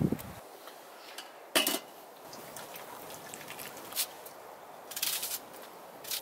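Scattered clinks and knocks of a stainless steel cooking pot and a knife, with short crisp scrapes as fruit is peeled with the knife over the pot; the loudest knock comes about one and a half seconds in.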